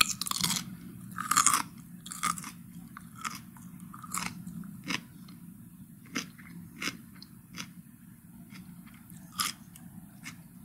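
Crisp cucumber being bitten and chewed: irregular wet crunches, thickest and loudest in the first couple of seconds, then slower, single crunches every half second or so.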